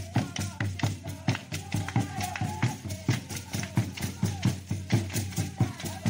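Traditional Ugandan dance music: drums beaten in a fast, steady rhythm of about four to five strokes a second, with group singing and hand clapping.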